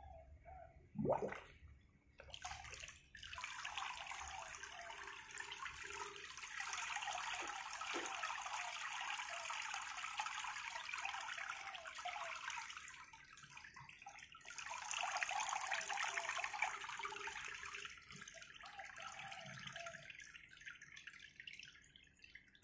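Water running off a waterproof digital bench scale lifted out of a basin, splashing back into the water. There is a sharp splash about a second in, then two long spells of running water with a brief lull between them, tapering off to quieter trickling near the end.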